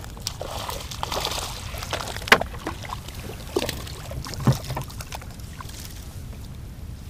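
Water sloshing and splashing around a kayak, with a few sharp knocks about two, three and a half and four and a half seconds in.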